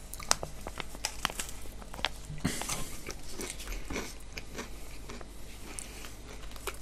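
Biting and chewing crunchy pide kebab bread: a steady run of short, sharp crunches and mouth clicks.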